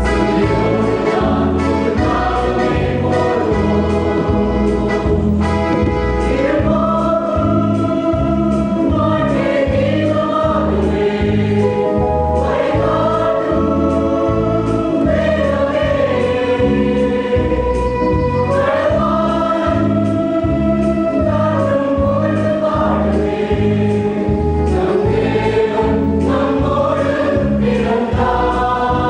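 Mixed choir of men's and women's voices singing a Christmas carol, in long held phrases that rise and fall, over a low accompaniment pulsing steadily underneath.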